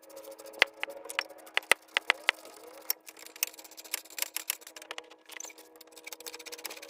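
Irregular metallic clicks and clinks of hand tools and parts while a brake caliper is bolted back on, with a few sharper knocks in the first couple of seconds over a steady faint hum.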